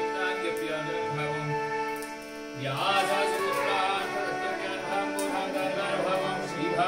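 Devotional music over a steady drone, with a slow low pulse beneath it; about two and a half seconds in, a louder melody with a wavering pitch comes in.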